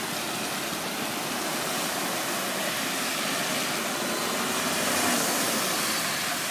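Rushing spray of floodwater as a vehicle drives through a deeply flooded road, swelling about five seconds in and easing off.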